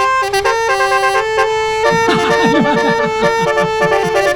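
A bus's basuri musical horn playing a melody in sustained, shifting notes, with a quick run of falling swoops about two seconds in.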